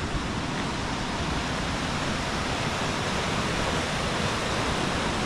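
River water rushing: a steady, even roar with no breaks.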